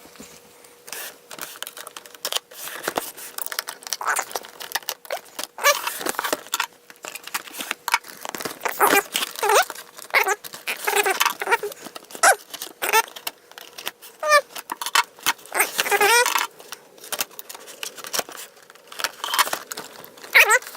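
Toy packaging being opened by hand: a run of clicks, rustling and tearing of cardboard and plastic. Short high, gliding whines come in now and then over it.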